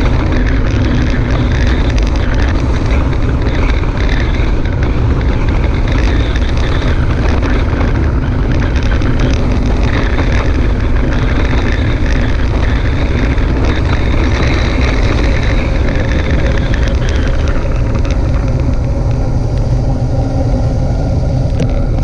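Wind rushing over the microphone of a bike-mounted GoPro while riding, a loud, steady rumbling rush that is heaviest in the low end. It thins slightly near the end.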